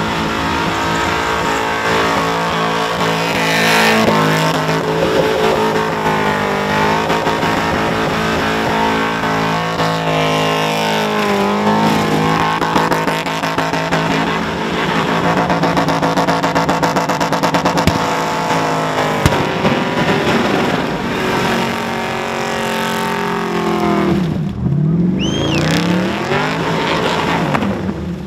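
Holden Commodore ute's engine held at high revs through a long burnout, the revs rising and falling repeatedly over the hiss and screech of spinning rear tyres. About 24 seconds in the revs drop away sharply and climb back, and right at the end the engine noise falls off.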